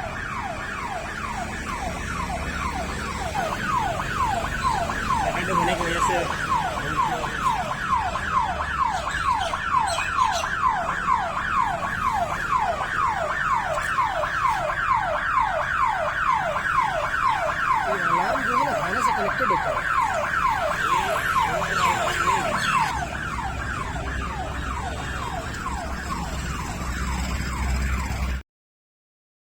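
ATM security alarm hooter sounding continuously: an electronic siren repeating a quick falling sweep several times a second, the sign of a tripped ATM security alarm.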